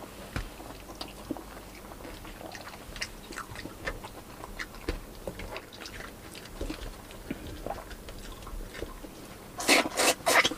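Close-up mouth sounds of eating by hand: soft chewing with scattered small wet clicks and lip smacks, and a louder run of smacking near the end.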